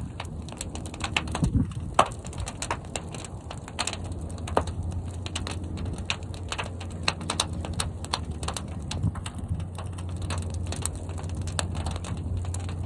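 Fire burning in a large kiln: a dense, irregular crackle of sharp pops over a steady low rumble.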